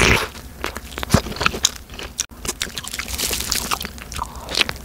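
A person biting into and chewing a soft cream-filled fruit bagel, a run of short, wet mouth clicks and squishes.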